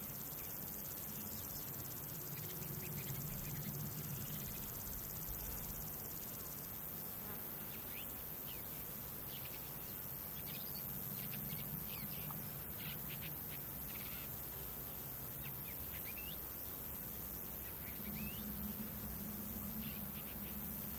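Insects trilling in a steady, high-pitched chorus, with scattered short bird chirps and a low steady rumble underneath.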